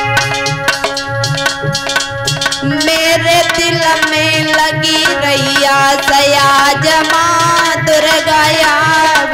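Hindu devotional bhajan music: sustained instrumental chords over a steady hand-drum beat, then about three seconds in a woman's voice comes in with long, wavering held notes.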